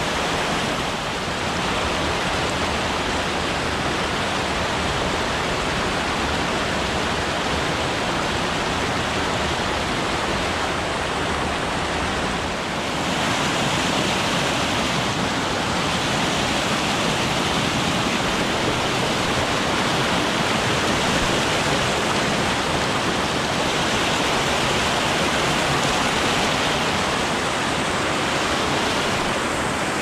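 Small mountain-stream waterfall: water cascading over rocks in a steady, continuous rush, a little louder and hissier from about halfway through.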